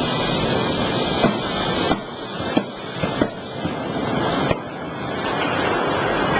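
CNC closed die forging hammer at work: steady loud machinery noise with about five sharp blows, three of them close together near the middle.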